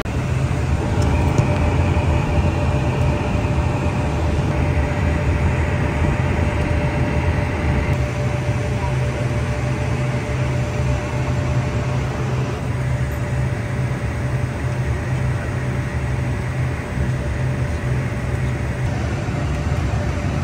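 Steady cabin drone of an Embraer Phenom 100 in flight, heard in the cockpit: a low rumble from the twin Pratt & Whitney PW617F turbofans and the airflow, with a faint steady whine over it.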